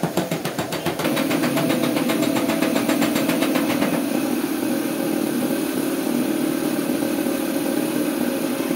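Small piston air compressor running, with a rapid ticking pulse at first that turns into a louder, steadier hum about a second in, under the hiss of an air spray gun spraying paint.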